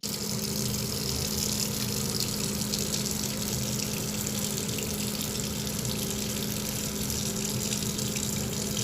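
Steady rushing of running water, like a tap left running, with a constant low hum underneath.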